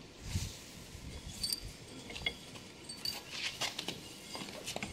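Light handling noise of a metal tube with bronze bushes in its ends being held and turned by hand: a soft thump about a third of a second in, then scattered small clicks and clinks.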